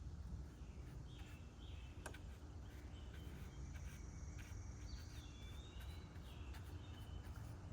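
Faint outdoor ambience of birds chirping: short whistled calls that rise and fall, over a steady low rumble. A thin high buzz sounds for about two seconds mid-way, and there is a single sharp click about two seconds in.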